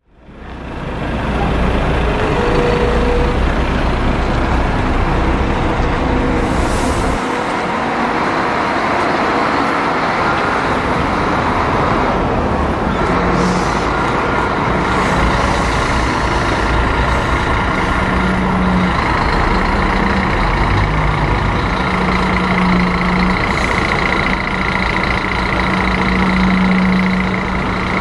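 Diesel engine of a Scania-chassis Busscar Vissta Buss LO coach running steadily, loud and close. Three brief hisses of air come through it.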